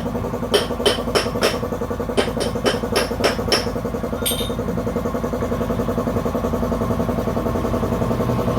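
A series of sharp knocks, about two to three a second, that stop after about three and a half seconds, over a steady mechanical hum that carries on after them.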